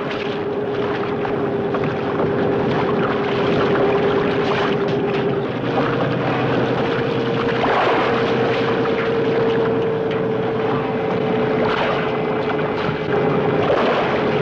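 Fishing boat's engine running steadily over a constant rushing noise; its hum rises slightly in pitch about five and a half seconds in.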